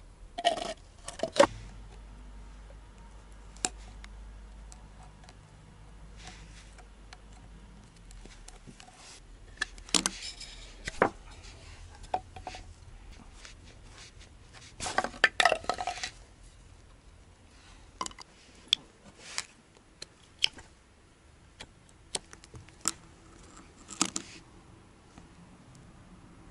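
Irregular clinks, clicks and knocks of metal parts being handled: a removed clutch master cylinder being set down on a wooden block and taken apart by hand, with the busiest clatter about fifteen seconds in.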